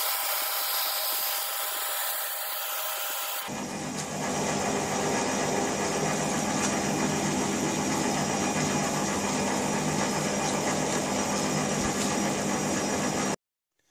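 Abrasive cloth rubbing on a rifle barrel spinning in a metal lathe, a steady hiss. About three and a half seconds in it gives way to the lathe running on its own, a steady machine hum, which cuts off abruptly near the end.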